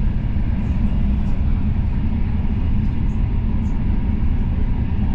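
Steady low rumble of a high-speed passenger train heard from inside the carriage while it cruises at speed.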